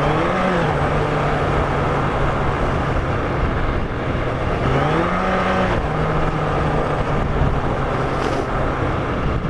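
Yamaha FZR1000 inline-four engine running at low speed under a rider riding on loose sand, its pitch rising and falling back twice as the throttle is opened briefly, about half a second in and again around five seconds in, over a steady rush of wind and road noise.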